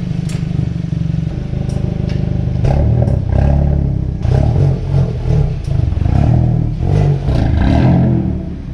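Car engine running, swelling and easing from about a third of the way in, with scattered sharp clicks and clatter over it.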